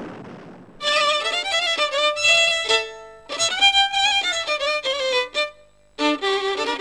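Fiddle playing a Hungarian folk dance tune in three short phrases with brief pauses between them, the first starting about a second in. A rushing noise fades out before the fiddle comes in.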